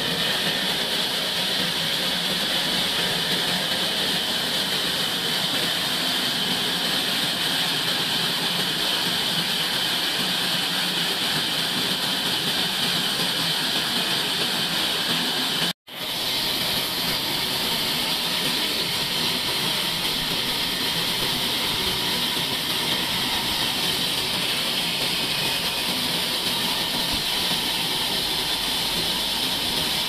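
Band sawmill running, its band blade cutting lengthwise through a log with a steady hissing whine. It breaks off for an instant about halfway through.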